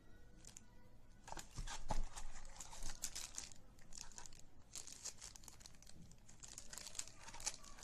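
Clear plastic bag crinkling as a bagged trimmer comb attachment is handled and turned in the hand. It comes in irregular crackly bursts, loudest about two seconds in.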